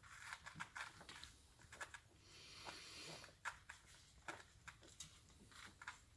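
Two-week-old cairn terrier puppies suckling: faint, irregular smacking and clicking sounds of feeding.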